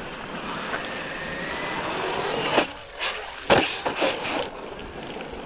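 Traxxas Maxx V2 RC monster truck driving on gravel: a steady rush of tyres over loose stones with a faint rising motor whine, then several sharp crunches or knocks in the second half.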